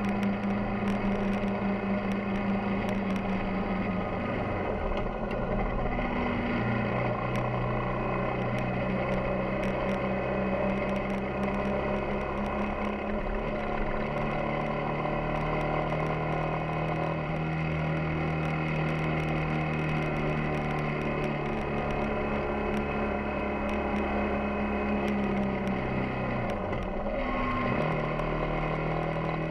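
Yamaha XTZ 250 Ténéré's single-cylinder four-stroke engine running steadily while the motorcycle is ridden. The engine note drops briefly and picks up again about five seconds in and once more near the end.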